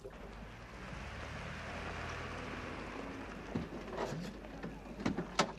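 A car's engine running with a steady low hum and hiss. About three and a half seconds in it gives way to several sharp clicks and knocks, as the car's door is worked.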